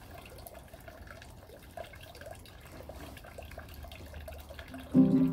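Faint background with scattered small ticks. Then, near the end, a chord is strummed loudly on a four-string instrument tuned to open C (C3, E3, G3, C4) and left ringing.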